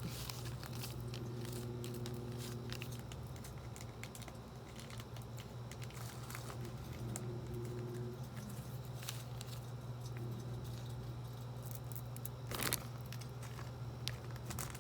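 Light crinkling and small clicks from the plastic packets of a Popin' Cookin' sushi kit being handled, over a steady low hum, with one louder crackle about three-quarters of the way through.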